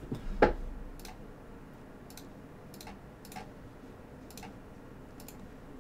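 Sparse clicking at a computer, mouse buttons and keys: about seven separate clicks spread out, the loudest about half a second in.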